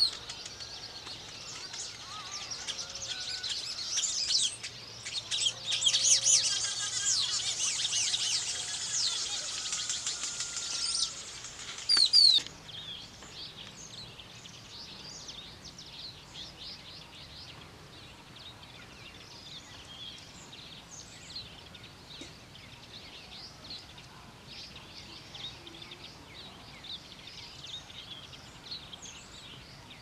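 Dense, loud chattering and buzzy chirping of a group of weaver birds for about the first twelve seconds, stopping abruptly. It is followed by fainter, scattered high chirps of small birds over a soft outdoor hiss.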